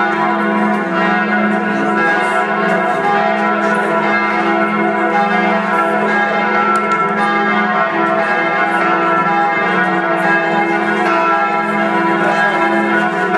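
Church bells pealing without a break, many bell tones ringing and overlapping at a steady level.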